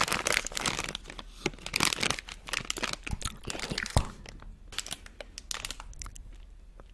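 Plastic gummy candy bags crinkling as they are handled and squeezed close to the microphone, densely at first and then in scattered crackles. A single sharp knock about four seconds in.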